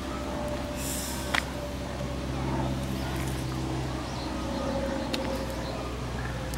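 Outdoor garden ambience: a steady low hum with a few faint short bird chirps, and one sharp click about a second and a half in.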